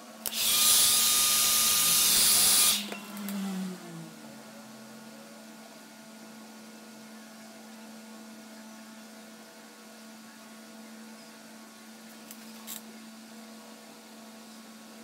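Handheld hair dryer blowing loudly for about two and a half seconds, then switched off, its motor spinning down with a falling whine. A low steady hum continues afterwards, with a faint click near the end.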